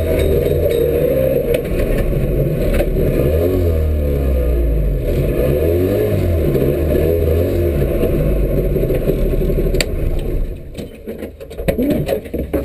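Rally Trabant 601's two-stroke engine heard from inside the cabin, running hard with the revs rising and falling. About ten seconds in it drops away as the car stops, leaving scattered rattles and clatter.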